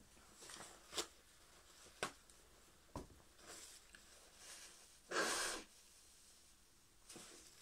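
Coughing with wheezy, rasping breaths: three short sharp sounds about a second apart, then one louder, longer cough a little past the middle.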